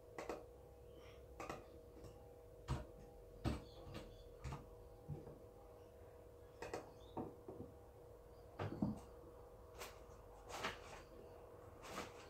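Irregular light clicks and knocks from desk work at a computer, a few with a dull thump, over a steady low electrical hum.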